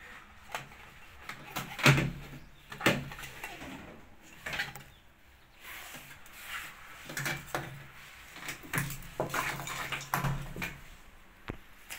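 Irregular clicks, knocks and rattles of hard parts being handled while a washing machine is taken apart, the loudest knocks about two and three seconds in.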